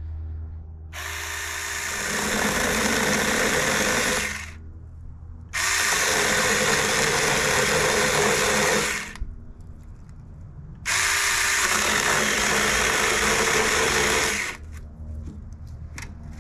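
Saker mini cordless electric chainsaw running in three bursts of about three to four seconds each, starting and stopping abruptly, as it cuts into dry cedar (juniper) wood.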